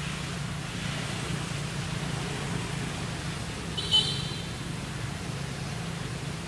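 Steady low rumble of road traffic, with one short high-pitched chirp about four seconds in.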